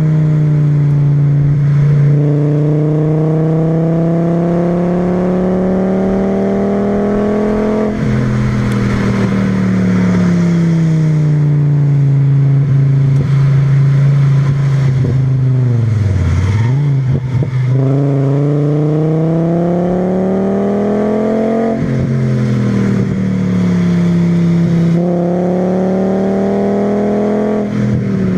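Volkswagen VR5 20V five-cylinder engine pulling hard through the gears, its note rising under load and dropping at each upshift, heard through a stock cat, a Milltek resonator and a 2.25-inch straight-through exhaust. About halfway through the revs fall right down and then climb again.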